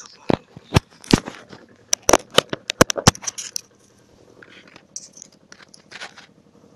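A string of sharp clicks and knocks, about a dozen in the first three seconds, followed by softer scuffing noises.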